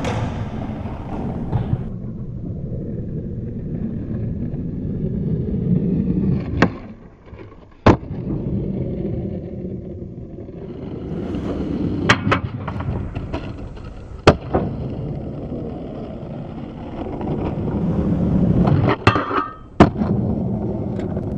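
Skateboard wheels rolling on a concrete floor, the rumble swelling and fading as the board passes, broken by about eight sharp clacks of the board popping and landing. Around the middle the rolling sound drops out for under a second before a loud landing clack.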